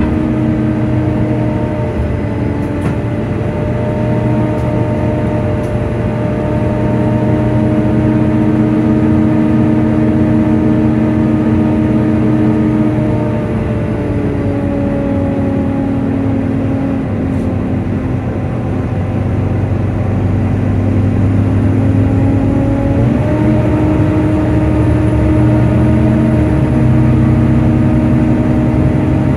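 Volvo B9TL double-deck bus heard on board: the engine and its loud cooling fan whine steadily in several held tones. The pitch sinks about halfway through and climbs back up about three-quarters of the way in.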